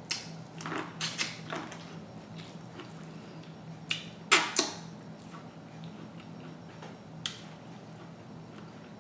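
Close-up eating sounds: corn on the cob being bitten and chewed, with sharp wet clicks and smacks of lips and fingers being sucked, the loudest about four and a half seconds in. A low steady hum underneath.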